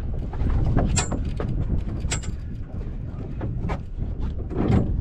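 Steady wind buffeting the microphone over boat and sea rumble, with a handful of sharp ticks and knocks, a few ringing briefly high, scattered through, from the rod and reel gear.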